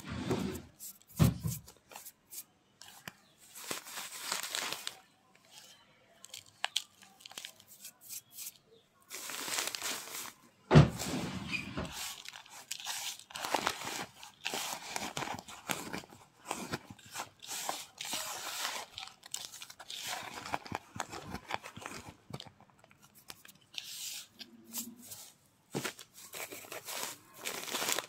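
Hand rubbing and crushing kerosene-soaked naphthalene powder in a plastic bowl: irregular gritty crunching and scraping, with one sharp bump about eleven seconds in. Near the end, crinkling of the plastic sheet underneath as the hand rubs it.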